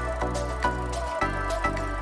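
Background music: a rhythmic track with regular percussive strokes over sustained bass notes that change about a second in.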